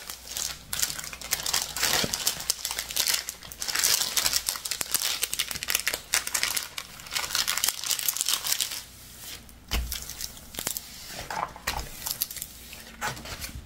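Plastic-film-covered diamond painting canvas crinkling and crackling as it is flattened and smoothed out by hand, with a couple of low thumps in the second half.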